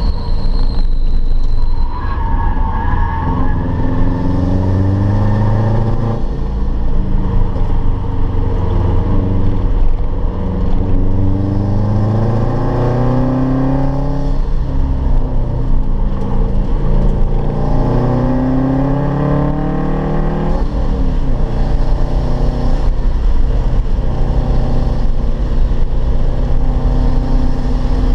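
Car engine heard from inside the cabin while lapping a race course, its pitch climbing under acceleration and falling back several times, with a steady drone near the end. Loud road and wind noise runs underneath.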